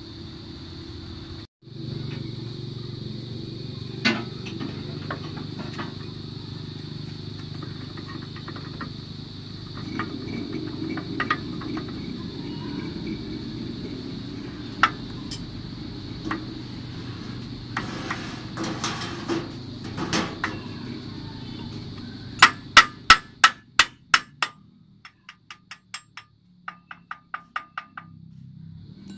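Hammer striking steel at a truck's axle spindle and hub: scattered single knocks at first, then a quick run of about eight loud blows near the end, followed by lighter, evenly spaced taps about four a second.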